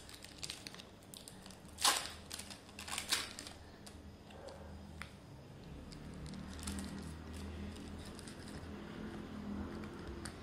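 Plastic cheese wrapper crinkling in a few sharp crackles as it is handled and pulled at to get it open, the loudest about two seconds in. A faint steady low hum follows in the second half.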